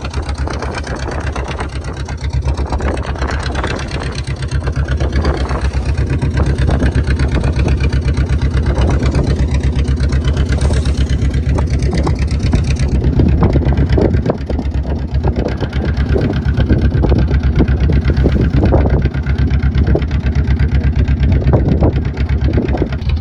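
Motorboat engine running steadily under way, a rapid low pulse with a hiss over it.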